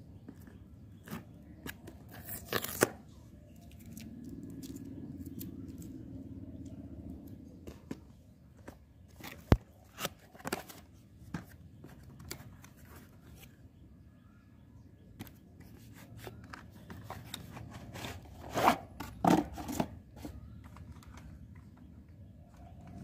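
A cardboard toy box being opened by hand: tearing, flaps scraping and rustling, and scattered clicks and knocks of handling, loudest in a cluster near the end. A low steady rumble sits underneath for a few seconds in the middle.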